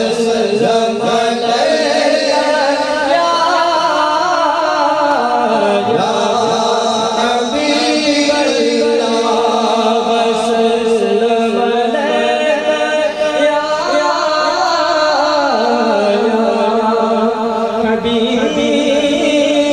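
Naat recitation: a devotional Urdu song in praise of the Prophet Muhammad, sung in a chanting style. A steady drone of held notes sits beneath the wavering melody.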